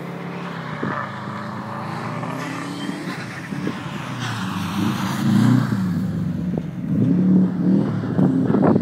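A car engine revving hard as the car is driven and slid on snow, its pitch swinging up and down with the throttle and gear changes. It gets louder about halfway through as the car comes closer.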